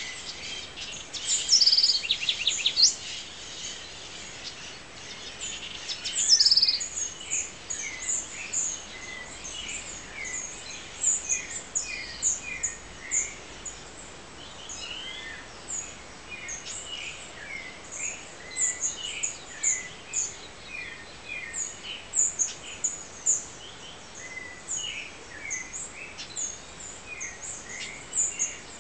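Dawn chorus of birds in the trees: many short, high chirps and calls overlapping throughout, with a louder rapid run of notes about two seconds in and another around six seconds.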